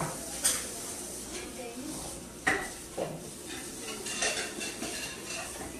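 Dishes and cutlery clinking and clattering as they are handled and cleared away, with a few sharp knocks about half a second, two and a half and three seconds in and lighter clicks after.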